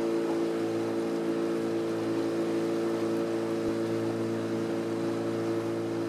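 Outboard motor of a wooden boat running at steady speed under way: a constant drone that holds one pitch, with a hiss of rushing air and water behind it.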